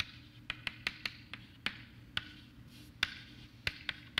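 Chalk tapping and scratching on a blackboard as someone writes: about a dozen sharp, irregularly spaced taps, some trailing a short scratch. A steady low hum runs underneath.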